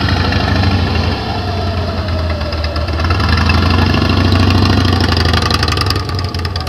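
Large cruiser motorcycle's engine running at low speed through a slow, tight turn, a steady low beat that swells a few seconds in and eases off near the end as the bike pulls away.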